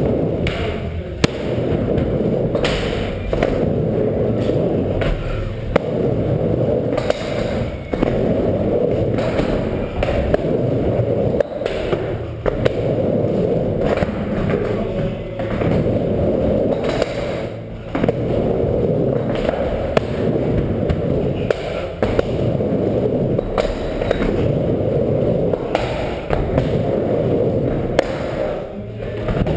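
Skateboard wheels rolling back and forth on a micro ramp, a steady close rumble, broken every few seconds by sharp knocks from the board.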